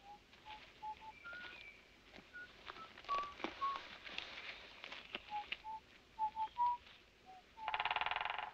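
Birds calling with short, clear whistled notes at varying pitches. Near the end a woodpecker drums a rapid, even burst lasting just under a second.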